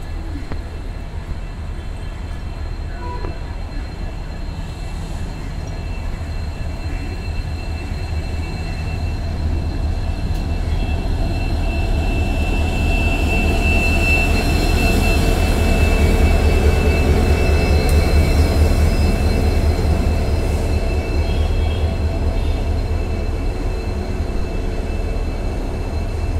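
EMD WDP4-class diesel-electric locomotive, with its two-stroke 16-cylinder engine, running slowly past at close range as the train enters the station. Its deep rumble builds to loudest about halfway through, with a thin high whine, then eases as the coaches roll by.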